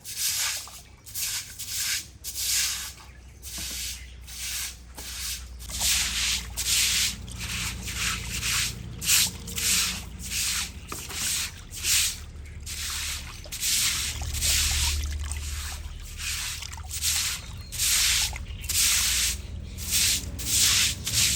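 Repeated rubbing strokes in a steady rhythm, roughly one or two a second, over a low steady hum.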